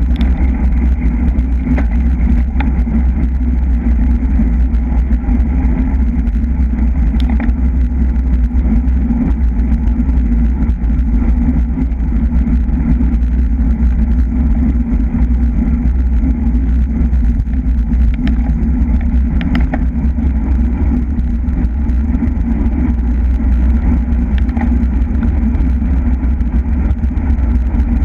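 Steady wind rush on the microphone of a camera mounted on a racing bicycle at speed, mixed with road and tyre noise, with a few faint clicks.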